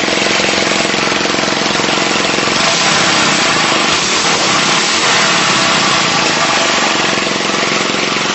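Single-cylinder vertical-shaft lawnmower engine, laid on its side to run as a horizontal-shaft engine, running steadily and evenly; it keeps running in this position without seizing.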